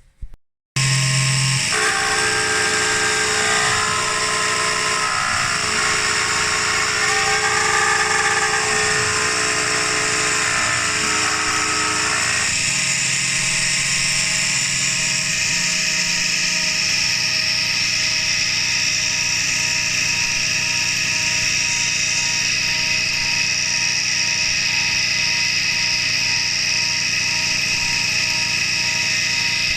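CNC milling machine running, with its spindle giving a steady high whine and the axis stepper motors giving tones that step and shift in pitch for the first dozen seconds, then settle. It starts abruptly and cuts off suddenly at the end.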